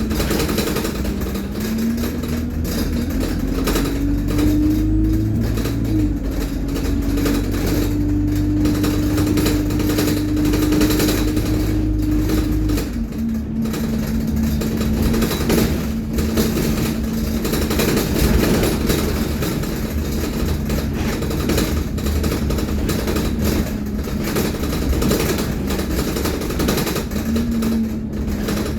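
Alexander Dennis Enviro200 bus running with a steady whine from its turbo and Allison automatic gearbox. The whine rises over the first few seconds and holds while the engine pulls. About halfway through, the engine's low rumble falls away and the whine drops to a lower steady pitch, then rises again near the end.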